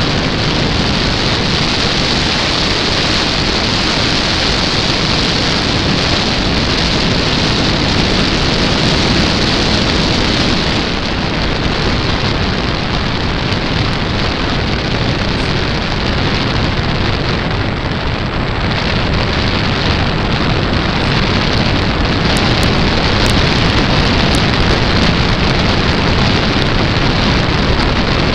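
Steady, loud rush of airflow buffeting a small camera's microphone mounted under the wing of a Cessna Corvalis in flight, a dense noise with no clear engine note. A few faint crackles come in over the last several seconds.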